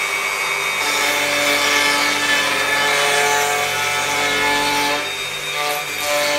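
Handheld power tool running on a rail jig, its motor whining steadily as it cuts across the face of a wooden slab to take it down to thickness. The sound eases briefly about five seconds in, then picks up again.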